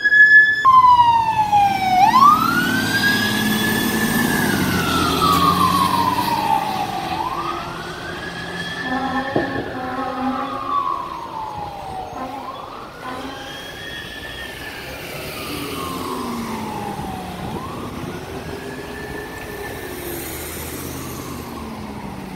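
Fire truck siren wailing, rising and falling about every five seconds, with engine rumble early on. It fades steadily as the apparatus drives away responding to a call.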